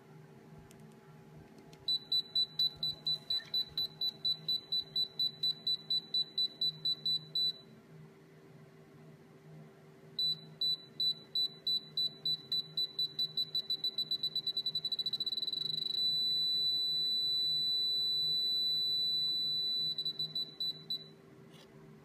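The electronic beeper of a homemade PSoC 4 caliper readout sounds a high, evenly pitched beep about four times a second for several seconds, then stops. It starts again, beeping faster and faster until the beeps run together into one steady tone for about four seconds, then breaks into a few last beeps. This is the readout's warning for the entered limit being approached and reached.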